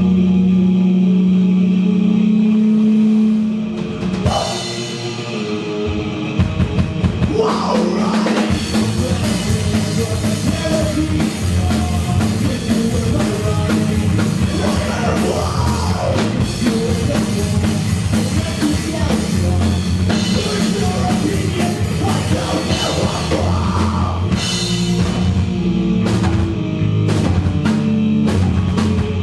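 Rock band playing live and loud through amplifiers. A held low note rings for the first few seconds, then the drums crash in about six seconds in and the full band plays on.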